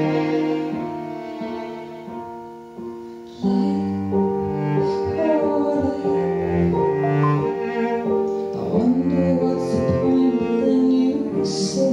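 Small live ensemble of violin, cello and digital piano: held string notes fade softly for the first few seconds. About three and a half seconds in, the ensemble comes in louder, and a woman sings over the strings and piano.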